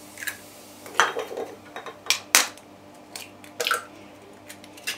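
Eggs being cracked into a plastic measuring jug: a run of sharp taps and clicks from the eggshells breaking and the shells being set down on a saucer.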